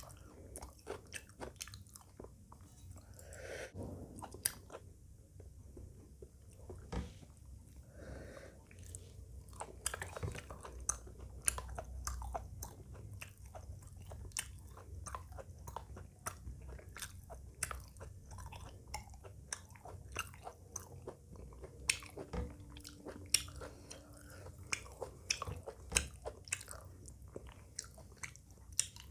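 Close-miked chewing and biting of food, a meal of rice with chicken curry and raw salad, with many irregular small clicks and smacks of the mouth.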